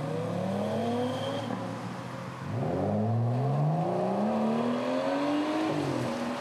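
Car engine accelerating hard, the pitch climbing through the revs, dropping back about two and a half seconds in and again near the end as it shifts up a gear.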